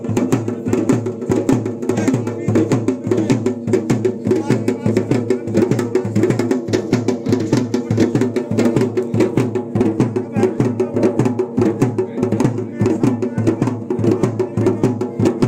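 Traditional Garhwali dhol-damau drumming for the Pandav dance: a fast, unbroken run of drum strokes over steady tones underneath.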